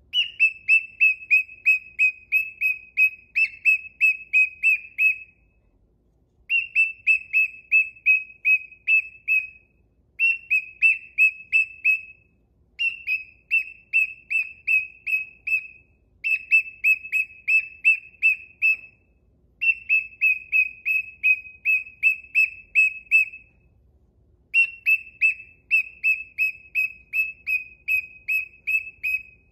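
Cockatiel giving short whistled chirps over and over, about four or five a second, each note dipping slightly in pitch, in runs of a few seconds broken by brief pauses.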